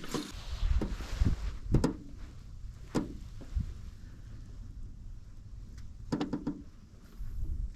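A series of knocks and clattering clicks over a low rumble: fish and gear being handled in a small fishing boat.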